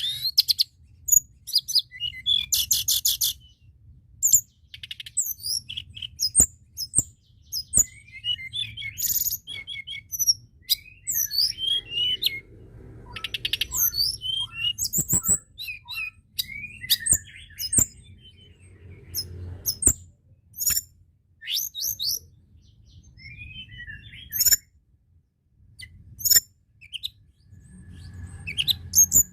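Tledekan gunung songbird singing a lively, varied song of high chirps, short whistles and fast trills in quick succession, over a faint low hum.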